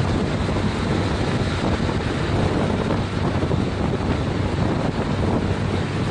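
Steady wind rush buffeting the microphone of a handlebar-mounted camera on a Honda CTX700N motorcycle, with the bike's 670 cc parallel-twin engine and road noise running underneath at a steady highway cruise of about 40–45 mph.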